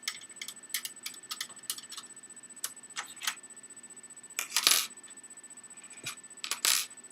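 Small sharp clicks and metal clinks from removing an Xbox 360 Slim's case screws with a Torx screwdriver and handling the screws. Two louder, longer clatters come about four and a half and six and a half seconds in.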